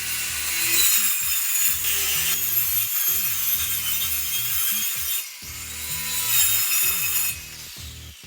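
Power saw cutting through a plastic sheet in two long runs with a brief pause between, over background music with a beat.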